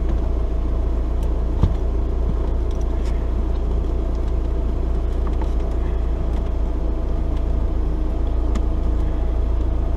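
Steady low rumble with a few faint steady tones through it, and faint scattered clicks; a single short knock a little under two seconds in.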